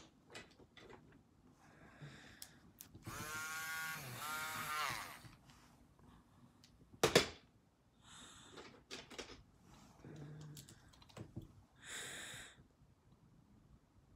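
Small clicks and taps from handling a pencil and drawing at a desk, with one sharp click about seven seconds in. A wavering squeak lasts about two seconds early on, and a short breathy rustle comes near the end.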